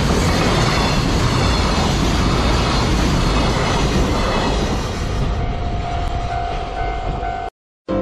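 Container wagons of a freight train rolling past a level crossing: a loud, steady rumble of wheels on rail. It eases slightly after about five seconds, when a steady tone joins it, and then cuts off abruptly.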